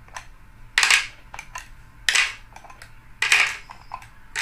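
Hard plastic ice pop mould parts clacking: about four short, sharp clicks a little over a second apart as the stick-lids are handled and pushed into the moulds.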